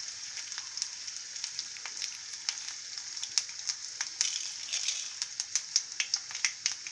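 Tempering of mustard seeds, urad dal and finely chopped ginger sizzling in hot oil in a kadai: a steady high sizzle with scattered sharp pops, which come more often and louder in the second half.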